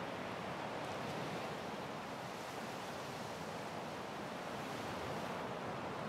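Ocean surf washing onto a beach: a steady rush of breaking waves that eases slightly midway and builds again near the end.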